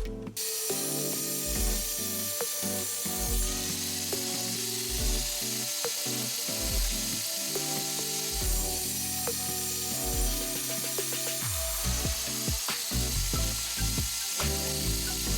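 Background music, with light workshop tool noise and a few sharp clicks underneath.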